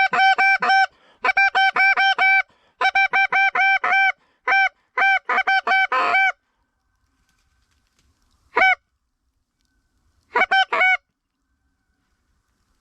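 Canada goose call blown by a hunter: rapid runs of short, sharp clucks, about five a second, through the first six seconds, then a single note and one more short run of clucks, aimed at a lone goose.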